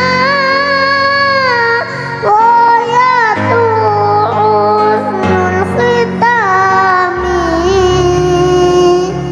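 A child singing sholawat, an Islamic devotional song, solo with long held, ornamented notes over a steady instrumental accompaniment.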